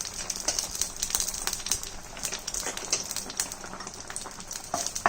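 Cumin and fenugreek seeds crackling and spluttering in hot oil for a South Indian tempering: a quick, irregular run of small pops over a steady frying hiss.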